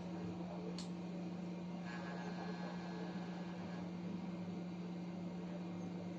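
Steady low electrical hum from workbench equipment, with a faint click about a second in.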